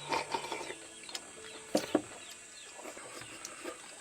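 Rural background of birds and chickens calling in short chirps and clucks. There are two sharp clicks a little before the two-second mark.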